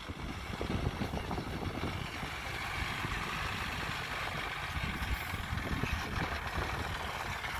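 An engine running steadily, growing louder in the first second and then holding an even level.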